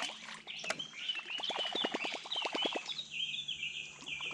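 Small birds chirping in rapid repeated notes, with a quick run of ticks, about ten a second, through the middle.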